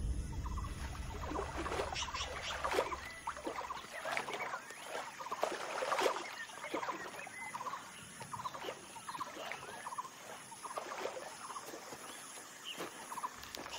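Splashing of deer hooves wading through shallow swamp water, mixed with short squeaky animal calls scattered irregularly throughout. A low hum underneath fades out about four seconds in.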